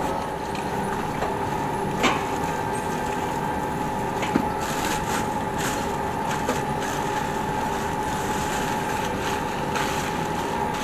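A pressure washer being unpacked from its cardboard box: a sharp knock about two seconds in, a smaller one a couple of seconds later, then crackling and rustling of plastic wrapping. Underneath runs a steady mechanical hum with one constant tone.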